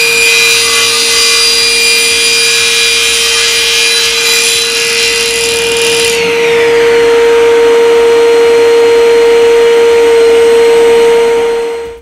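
SIP 01332 10-inch cast iron table saw with its 2200 W motor running, cross-cutting a sheet of MDF with the dust extractor on. The cutting noise dies away about six seconds in and the blade runs on freely with a steady whine, until the sound cuts off near the end.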